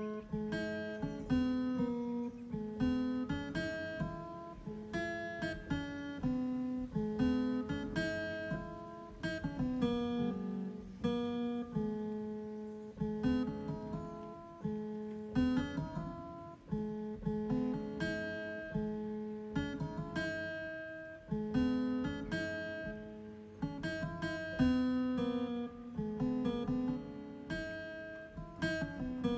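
Background music played on an electronic keyboard: a melody of notes that start sharply and fade, over a repeating lower line.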